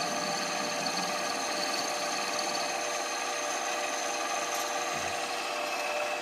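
A small lathe running steadily while turning a bushing, its motor giving a steady whine with even cutting noise.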